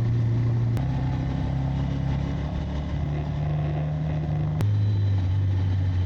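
Motorcycle engine running while riding, a steady hum whose pitch steps up about a second in and drops back down again near the end.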